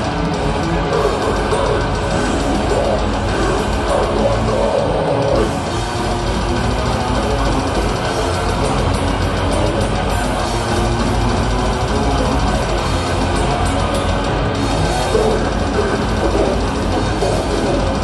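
Death metal band playing live at full volume: heavily distorted guitars and a fast drum kit, loud and unbroken.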